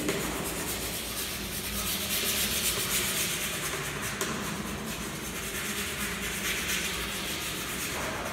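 Chalk rubbed back and forth across a chalkboard in quick shading strokes: a steady scratchy hiss.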